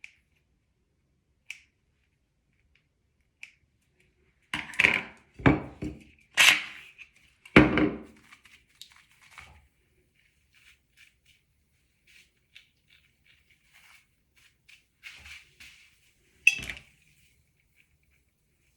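Small hard objects being handled and set down: scattered light clicks with a cluster of louder knocks and clatters about five to eight seconds in and another near the end.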